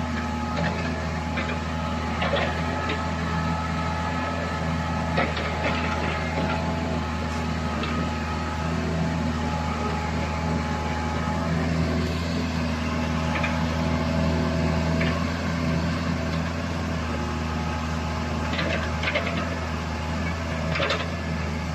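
A mini crawler excavator's engine running steadily with a low hum, with scattered short knocks and clicks over it.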